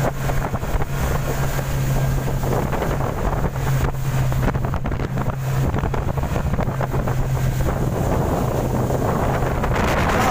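An inflatable boat's outboard motor running steadily under way, a constant low hum, with wind buffeting the microphone. Near the end the engine hum drops out under a louder rush of wind.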